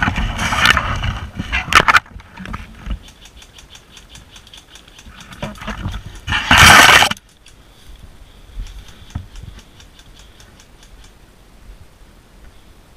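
Leaves and branches scraping and rustling against the body-worn camera as a player forces his way through dense bush, loudest in a short burst just before seven seconds in. Between the bursts comes a run of faint, rapid, evenly spaced clicks.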